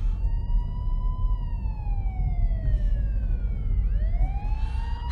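Emergency-vehicle siren wailing: it rises, falls slowly for a couple of seconds, then begins to rise again about four seconds in. Under it runs the low rumble of a car's engine and road noise, heard from inside the car.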